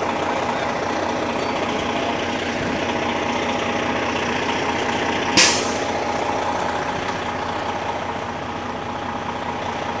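Fire engine idling with a steady drone, and one short, sharp air-brake hiss about five seconds in.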